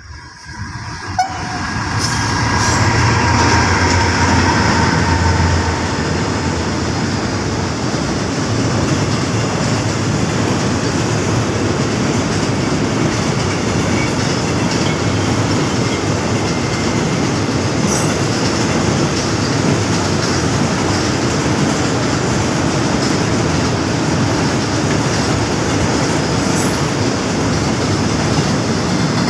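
Container freight train passing close by: the diesel locomotive's engine rumble swells in over the first two seconds and is loudest for a few seconds, then gives way to the steady rolling noise of the container wagons on the rails.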